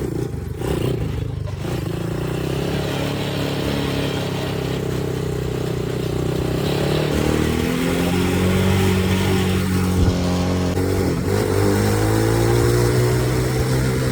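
Manual-shift ATV engine running as it is driven. Its pitch holds steady for several seconds, then rises and falls a couple of times as it is revved.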